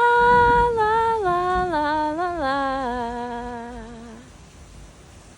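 Unaccompanied woman's voice humming a slow descending phrase: a long first note, then several steps down to a low held note that fades out about four seconds in.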